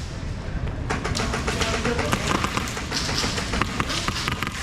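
Airsoft guns firing in an indoor arena: a dense, irregular run of sharp clicks and snaps starts about a second in, with faint shouting underneath.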